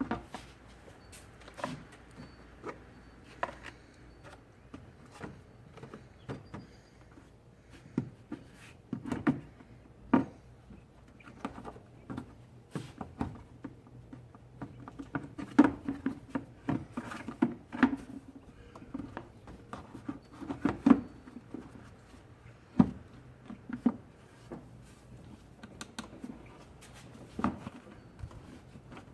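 Irregular clicks, knocks and rubbing of hard parts being handled and fitted, with a few sharper knocks now and then.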